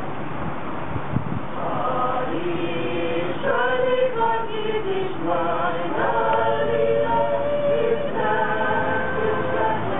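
Mixed choir of men's and women's voices singing in parts, with long held notes. A brief pause between phrases at the start, then the singing comes back in about one and a half seconds in.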